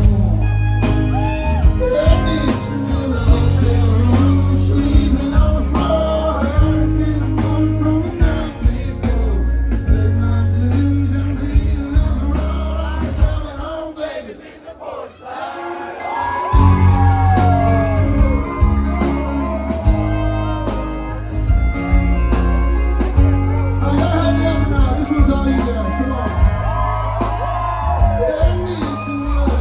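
Live band music with singing. The band's low end drops out about halfway through for a few seconds, leaving a gliding voice, then the full band comes back in.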